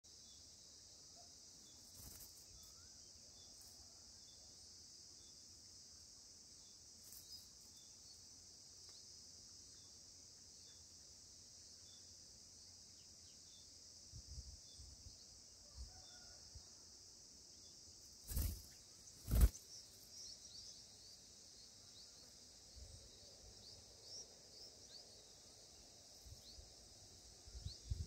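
Steady high-pitched insect chorus of crickets or cicadas droning throughout, with two sharp knocks about 18 and 19 seconds in and faint short high chirps in the last third.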